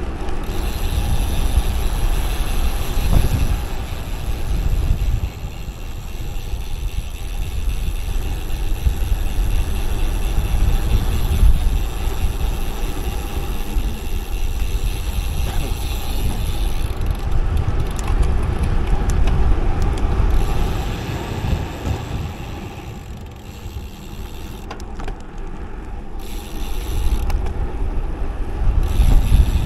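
Wind rushing and buffeting over the microphone, with road noise from a road bike descending at speed. It eases for a few seconds about three quarters of the way through.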